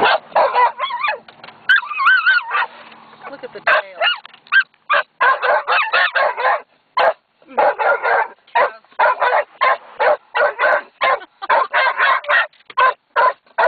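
A herding-type dog inside a car whining in a high, wavering pitch, then barking in a rapid, relentless string of sharp barks, about three a second, at cows outside the window.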